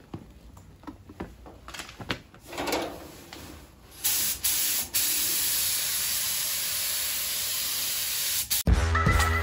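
Compressed-air paint spray gun spraying: two short bursts about four seconds in, then a steady hiss held for nearly four seconds that cuts off sharply. Faint clicks and handling noise come before it, and music with a steady beat starts near the end.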